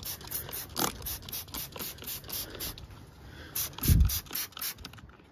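Trigger spray bottle squeezed rapidly, a short hissing spritz about four times a second, with one dull thump about four seconds in.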